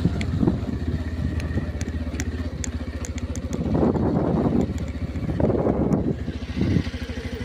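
A small engine running steadily with an even low pulse, while gusts of wind buffet the microphone several times.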